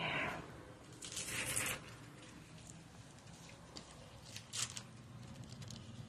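Faint rustling and handling noises of gloved hands working against black plastic sheeting and wet spray-foam insulation. There is a short rustle at the start, a louder hissing rustle lasting most of a second about a second in, and a brief crackle a little past the middle.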